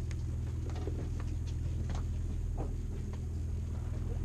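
Fishing boat's engine running steadily as a low hum, with scattered light clicks and knocks over it.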